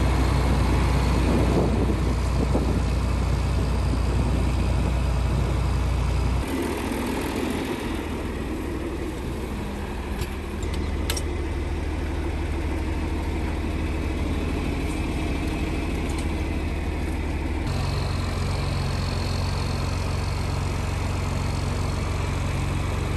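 John Deere farm tractor engine running steadily at idle. A single sharp metallic click comes about eleven seconds in.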